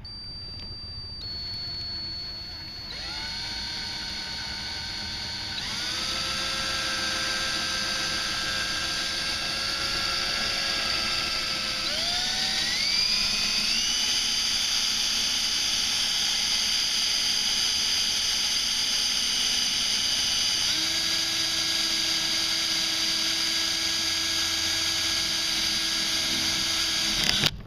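Power drill drilling out the centre of a kayak rigging rivet, started slowly and then brought up to speed: its motor whine steps up in pitch several times in the first half, holds steady, and cuts off suddenly near the end.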